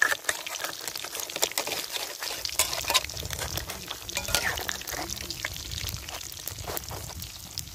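Batter-coated banana blossom deep-frying in a wok of oil, sizzling with many small crackling pops, while a metal spatula stirs the pieces.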